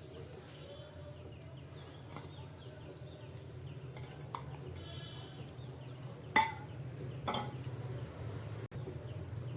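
Metal pot and kitchen utensils clinking twice, a sharp clink with a brief ring about six seconds in and a softer one a second later, over a low steady hum, as ingredients are put into a pot of water.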